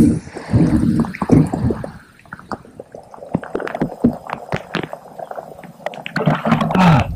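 Water gurgling and slapping against a boat's hull, with irregular knocks.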